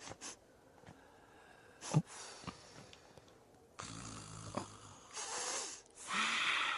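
A person breathing noisily through the nose: a few short, snore-like snorts and sniffs in the second half, with a sharp click about two seconds in.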